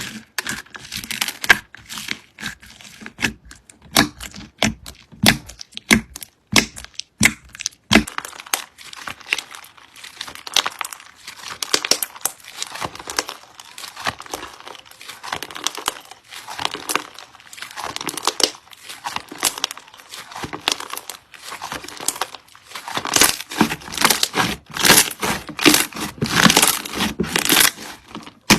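Slime being squeezed and worked by hand: a continuous run of sticky clicks, pops and crackles, thicker and louder for the last few seconds.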